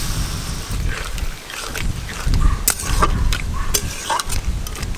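Metal spatula stirring watery crab curry in a metal wok, with repeated clicks and scrapes against the pan over a steady low rumble.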